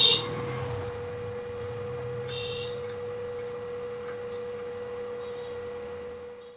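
Steady electrical hum from a stick welder. A short, loud rasp right at the start and a fainter one about two and a half seconds in, as the electrode tip is touched against the steel tube joint.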